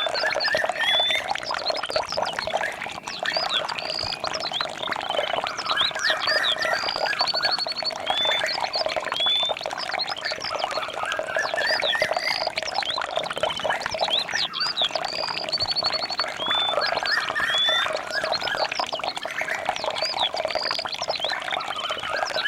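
Dense chorus of birds chirping and trilling, with short high whistled notes and rapid trills, over a steady lower chorus of animal calls.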